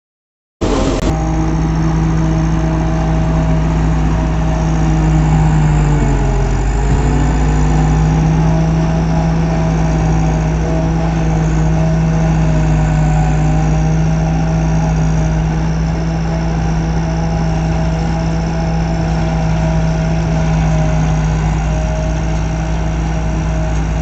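Kartar Gajjendhra combine harvester's diesel engine and machinery running steadily while harvesting rice, coming in suddenly about half a second in. Around six seconds in, the engine pitch dips briefly and then recovers.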